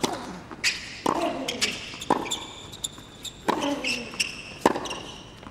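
Tennis rally on a hard court: the serve and groundstrokes crack off the rackets, and the ball bounces on the court, about every half-second to second. Sneakers squeak on the court surface and a player grunts on some strokes.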